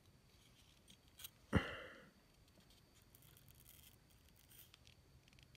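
A sharp click about a second and a half in. Later, faint scraping as a dull folding-knife blade is drawn across arm hair in a shave test.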